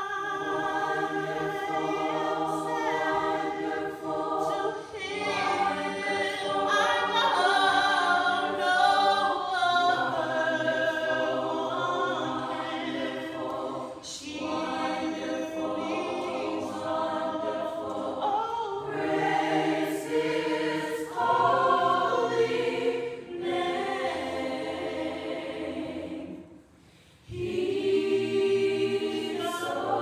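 College choir singing together, several voices in parts holding long phrases. The singing breaks off briefly near the end, then the choir comes back in.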